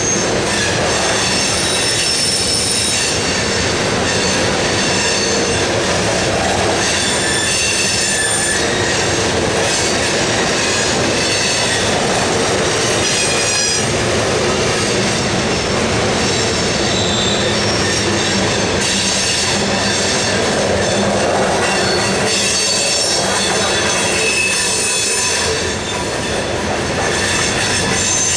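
Loaded coal hopper cars of a CSX freight train rolling past, a steady heavy rumble of wheels on rail with high-pitched wheel squeal that comes and goes.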